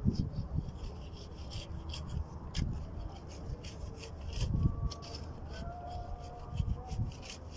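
Steel shovel scraping and chopping through a sand-and-cement mix on sandy ground, in repeated short strokes, with a few dull thumps.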